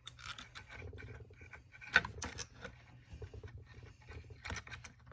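Small parts being handled during chainsaw carburetor reassembly: irregular clicks and scrapes as the fuel line nipple and carburetor are fitted, with one sharp click about two seconds in.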